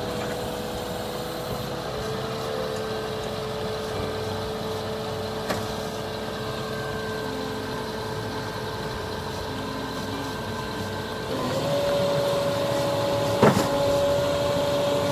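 Diesel engine of a truck-mounted concrete boom pump running steadily. About eleven seconds in it speeds up, rising in pitch and getting louder, and near the end there is a sharp metallic knock.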